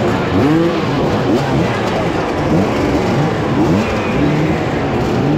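Several dirt bike engines revving in place, their overlapping blips rising and falling in pitch again and again.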